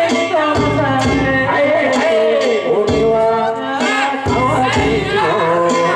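Japanese festival float music: a drum beating with metal gongs, and voices chanting over it.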